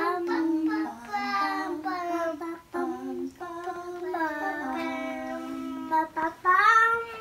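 A young child singing a song, holding long notes and sliding between them, and getting louder and higher near the end.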